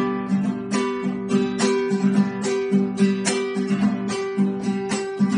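Classical guitar strummed in a steady rhythm of chords: the instrumental introduction before the singing begins.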